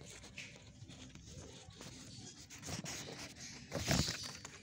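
Faint rustling and handling noise, with a brief louder rustle about four seconds in.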